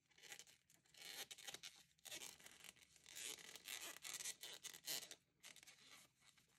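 Faint, irregular rustling and scraping of thick T-shirt yarn being pulled through stitches with an 8 mm crochet hook while working single crochets.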